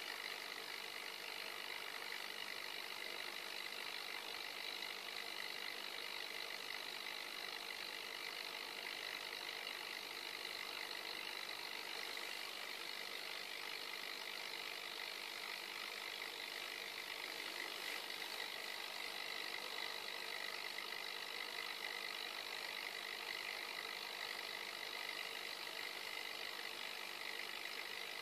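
Aquarium pump running in a steady, even hum with a faint high whine.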